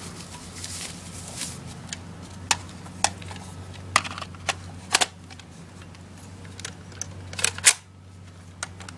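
Handling clicks and knocks from an airsoft rifle magazine being taken out and handled: a handful of separate sharp clicks, with a quick cluster of them near the end. A steady low hum runs underneath.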